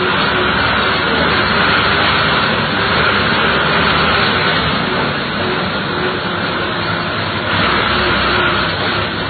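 Bus engine running and road noise heard from inside the bus cab while it drives, a steady loud din.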